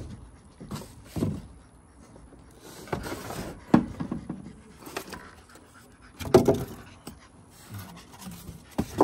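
Foam packing and cardboard rubbing, squeaking and knocking as a heavy trolling motor is worked out of its box: irregular scrapes and knocks, the loudest about four and six seconds in.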